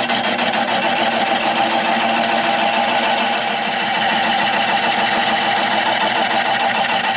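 Turning tool cutting into a spinning oak blank on a Nova 16/24 wood lathe, a steady loud cutting noise over the lathe's hum while a tenon is turned. The cut stops abruptly at the very end.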